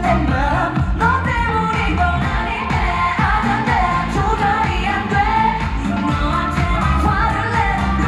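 Korean pop song played through a concert hall's PA, with a woman singing live over the backing track and a steady bass beat, as a concert soundcheck run-through.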